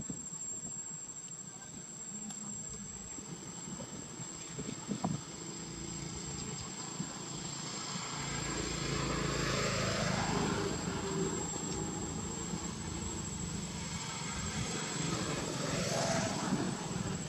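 A steady high insect buzz, with a motor vehicle passing by twice: once about halfway through and again near the end, each swelling and fading away.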